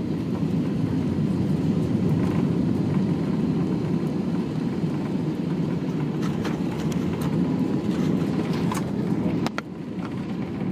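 Steady low rumble of a vehicle in motion, with a few sharp clicks and knocks in the second half and a brief dip in level near the end.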